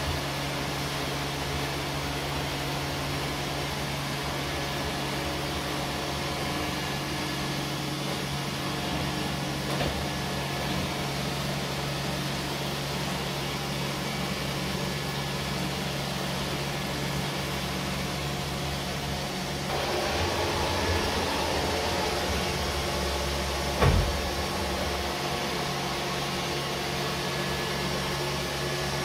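Robot vacuum cleaner running on a hard wooden floor: a steady whirring hum with a low tone. It grows louder and brighter about twenty seconds in, and a single knock comes a few seconds later.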